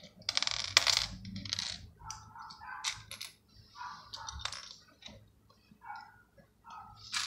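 Small plastic Lego pieces clicking and clattering as they are sorted and handled on a tabletop, in short irregular rattles. The loudest clatter comes about a second in.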